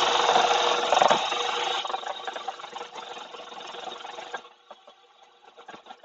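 Electric hand mixer running on speed one, its motor whirring and the beaters rattling as they beat cream cheese frosting in a bowl. Loud for the first two seconds, then quieter, and much fainter for the last second and a half.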